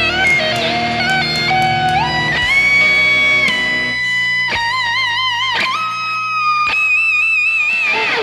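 Electric guitar played through a DemonFX overdrive preamp pedal, a DOD 250-style overdrive, playing a lead line of held notes with bends and wide vibrato. It stops near the end.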